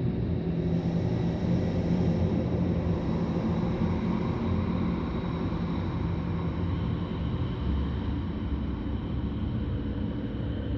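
Deep, continuous synthesizer drone washed in reverb, with a few faint, steady high tones held above it. A new high tone enters about two-thirds of the way through.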